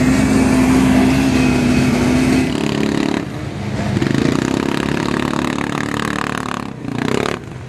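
Off-road vehicle engines running: a steady engine note for the first couple of seconds, then, after an abrupt change, an ATV (quad bike) engine running as it drives through mud.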